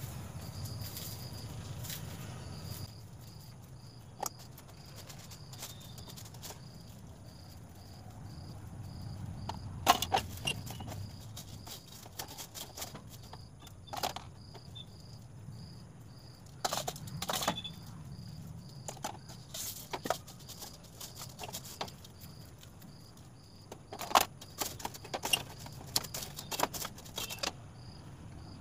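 Sparse clinks and knocks of metal kitchenware being handled, coming singly and in short clusters, loudest about ten seconds in and again near the end. Under them runs a low steady hum, and a faint high chirp repeats about twice a second.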